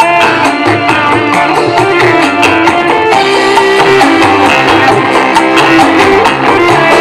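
Music with a steady drum beat playing loudly through a small driver in a homemade cardboard miniature speaker box.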